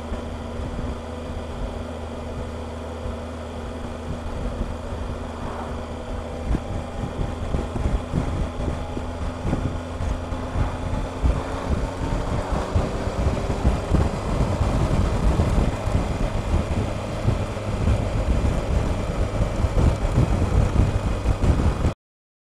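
Triumph Explorer motorcycle's three-cylinder engine accelerating, its pitch rising a few seconds in, with buffeting wind noise on the helmet-mounted microphone that grows louder as speed builds. The sound cuts off abruptly near the end.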